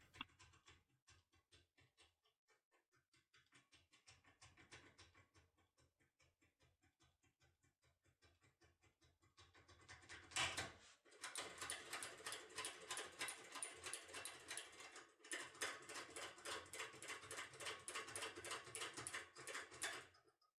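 Faint, rapid small clicking and scratching of a foil impression tool being worked back and forth inside an AGB Genio cylinder lock, growing louder and denser about ten seconds in.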